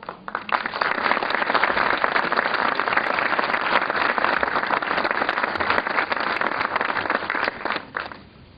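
Concert audience applauding. The applause breaks out at once, holds steady, and dies away into a few last claps near the end.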